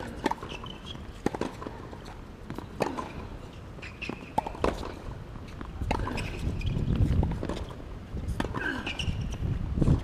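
Tennis rally on a hard court: a string of sharp knocks from racket strings hitting the ball and the ball bouncing, with players' footsteps and short shoe squeaks. A low rumble runs through the middle of the rally.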